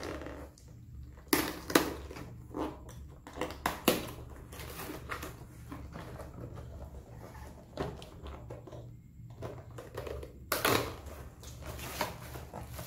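Cardboard box packaging and plastic wrapping being handled by hand: irregular rustling, crinkling and scraping with sharp knocks. The loudest come about a second and a half in, about four seconds in, and near the end.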